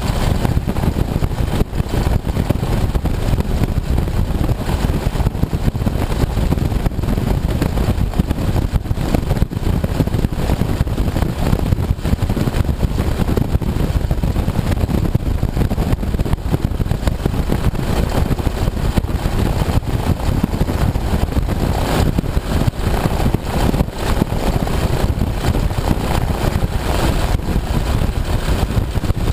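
Open-cockpit biplane's piston engine running steadily at low power on the ground, a loud, rough, continuous drone.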